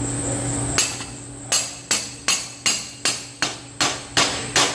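A run of evenly spaced sharp taps, about two and a half a second, each with a short ringing tail, starting about a second and a half in after a steady hiss.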